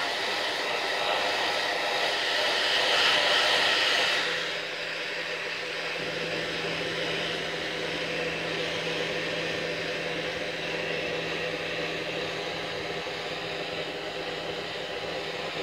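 Handheld hair dryer running steadily, blowing air over a wet puppy's fur. It drops in level about four seconds in, leaving a softer steady hiss with a low hum.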